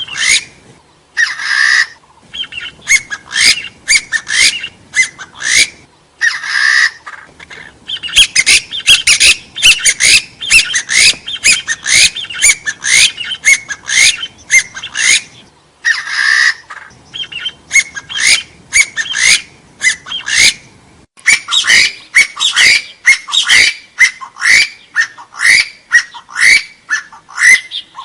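Calls of gà so, a hill partridge (Arborophila), from a bird-trapping lure recording: long runs of short rising notes, several a second, broken by brief pauses. A longer, broader note comes about a second in, again about six seconds in and again near sixteen seconds.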